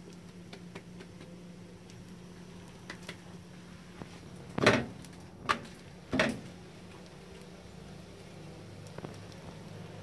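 Hands working a thin sheet of msemmen dough on a cast-iron griddle pan: a few faint taps, then three short knocks a little past the middle, about two-thirds of a second apart. A steady low hum runs underneath.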